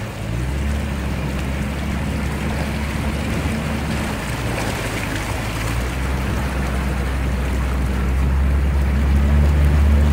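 Jeep Cherokee XJ engine running while it drives through water, with water rushing and splashing against the body, heard from inside the cab. It gets a little louder near the end.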